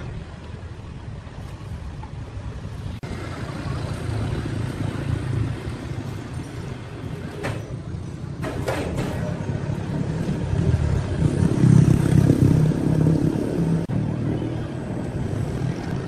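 A heavy engine running with a low rumble, growing louder from about ten seconds in to a peak near twelve seconds, then easing off.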